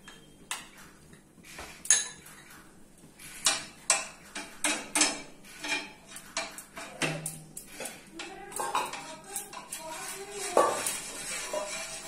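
A kitchen utensil clinking and scraping against a pan and a small bowl while butter is spread over the pan's surface. It is a run of irregular sharp clinks, with the loudest about two seconds in, around four seconds in, and near ten and a half seconds in.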